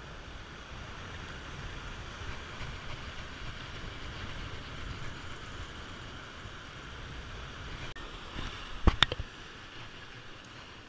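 Surf breaking and washing on the shore, a steady rushing noise with wind on the microphone. A few sharp clicks come together about nine seconds in.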